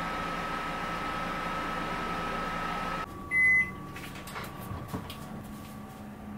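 Microwave oven running with a steady hum, warming bread dough on low power. The hum stops abruptly about three seconds in and a single short, loud beep sounds, signalling the end of the cycle. A few light clicks and knocks follow as the glass dish is handled.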